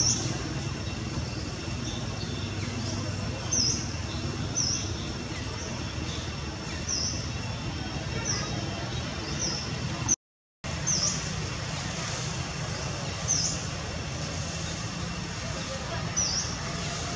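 A small bird chirping repeatedly, short high chirps every second or two, over a steady low rumble and a faint thin high hum. The sound cuts out for half a second about ten seconds in.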